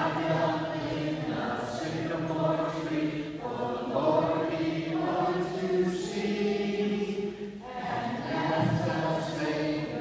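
Children's choir singing an anthem in phrases of held notes, with a short breath break about a third of the way in and another near the three-quarter mark.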